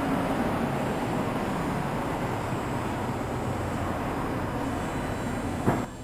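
A standing Hankai Tramway Mo501-type tram gives a steady mechanical drone, its on-board equipment running while it waits with its doors open. A single sharp knock comes near the end, and then the drone drops quieter.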